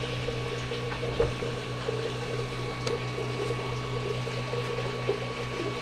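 Steady electric hum of a small motor, with faint scattered clicks.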